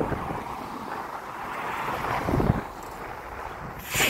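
Wind buffeting the phone's microphone, a steady rushing noise, with a low thump about two and a half seconds in and a short sharp crackling noise near the end.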